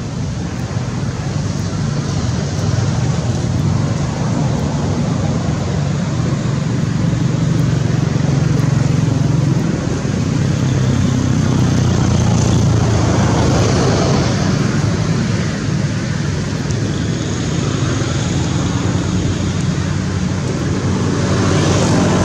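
Road traffic: a steady low engine rumble with road noise, swelling a few times as vehicles pass.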